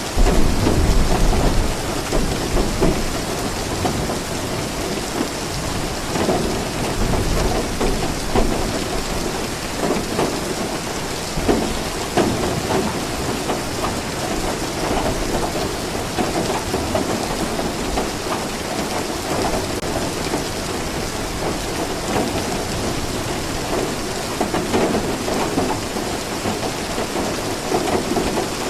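Steady heavy rain with thunder rumbling low underneath. The loudest rumble comes right at the start, and a second one about seven seconds in.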